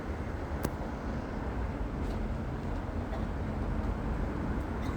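Steady low outdoor background rumble, with a single sharp click about half a second in.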